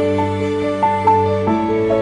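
Instrumental background music with held notes that change a couple of times a second.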